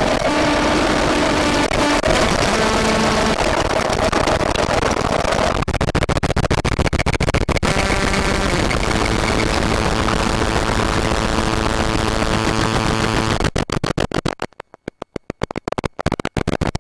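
Circuit-bent Casio MT-240 keyboard run through added distortion and glitch circuits, putting out a loud, dense wall of distorted glitch noise with buzzing steady tones under it. The texture changes about five and a half seconds in, and near the end the sound breaks into stuttering, chopped bursts with silent gaps between them.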